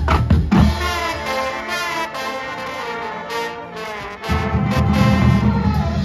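Marching band playing, led by brass horns with drums. The low end is thin for the first few seconds, then the lower instruments and drums come back in strongly about four seconds in.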